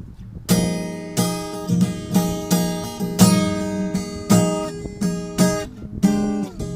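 Guitar fitted with a pickguard being strummed, a run of chords each struck sharply and left to ring, with a change of chord near the end, played as a sound test of the pickguard.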